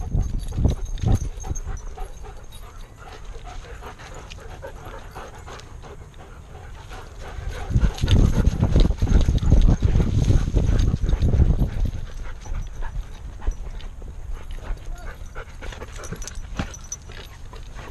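A dog running on a dirt trail, heard from a camera strapped to its back: irregular thudding paw steps and jolts of the rig, with panting. A louder stretch of rumbling jolts comes about eight seconds in and lasts about four seconds.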